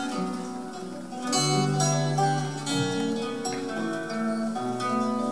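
Two acoustic guitars, a nylon-string classical guitar and a steel-string cutaway, playing an instrumental passage together, plucked notes ringing and changing chords.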